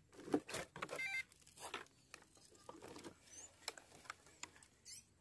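Faint rustling and a few scattered light clicks and knocks as a 1/14-scale model Mercedes 2638 truck is lifted off the dirt, turned upright and set down on a plank bridge.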